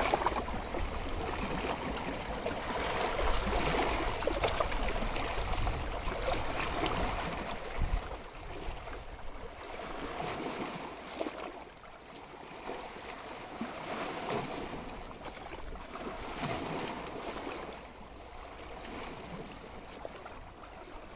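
Ocean surf breaking and washing, a rushing sound that swells and ebbs, louder in the first eight seconds and quieter after.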